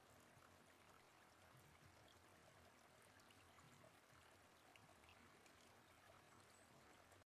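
Near silence: a faint, steady sound of pouring, trickling water from a relaxation track's water-sounds layer, left after the music has faded out.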